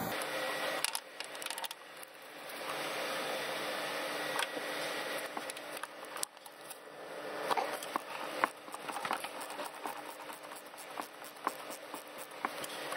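Irregular metallic clicks and clinks of a socket, long extension and ratchet being fitted and worked on a spark plug deep in the well, densest in the second half.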